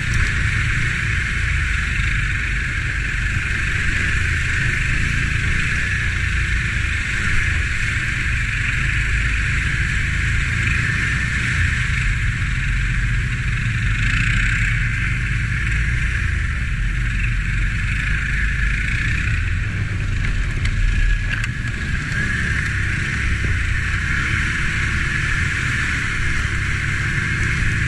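Can-Am ATV engine running steadily while riding a trail, picked up by a camera mounted on the quad.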